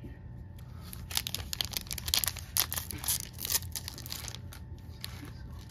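A Topps baseball card pack's wrapper being torn open by hand: quick crinkling and tearing rustles, busiest between about one and four and a half seconds in.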